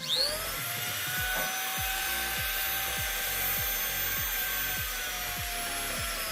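Mini rotary die grinder switched on, spinning up within a fraction of a second to a steady high-pitched whine and running at constant speed, the pitch sagging slightly near the end. Electronic music with a steady beat plays underneath.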